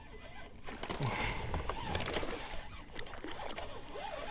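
Water splashing and sloshing against a small boat as a hooked striped bass is brought alongside. It starts under a second in, with scattered sudden splashes.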